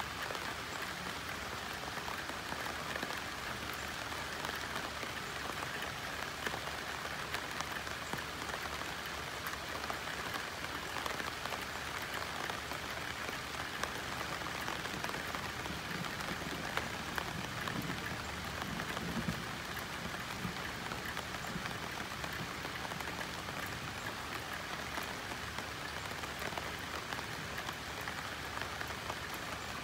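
Steady rain falling on banana leaves, a dense patter of drops on the broad leaves.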